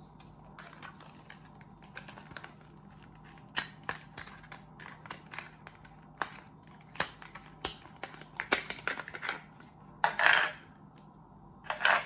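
Unpacking by hand: a Fenix AER-02 remote pressure switch being worked out of its clear plastic blister tray. Scattered small clicks and taps of plastic and parts being handled, with a louder plastic crackle about ten seconds in.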